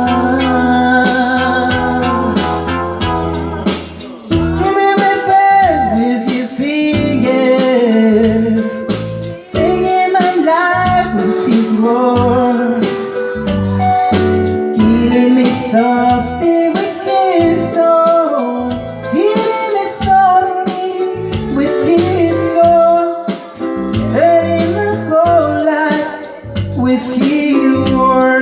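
Music: a voice singing wordless, sliding vocal runs over keyboard chords and bass, with only held chords for the first few seconds.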